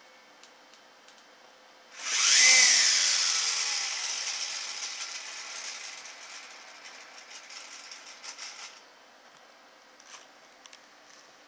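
Small electric motor of a spinning cat toy whirring: it starts suddenly about two seconds in, dips in pitch at first, then fades gradually and stops abruptly a few seconds before the end.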